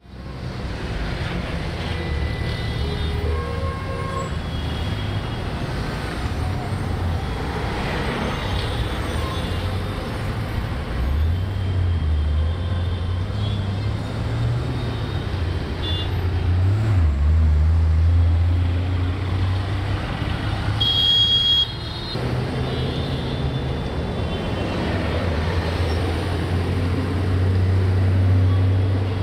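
Heavy, slow-moving road traffic: a steady low rumble of truck and car engines, with short vehicle horn toots now and then. A louder, higher horn blast comes about two-thirds of the way through.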